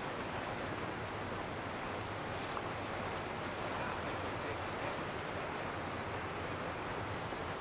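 Small ocean waves washing through shallow water: a steady, even rush of surf.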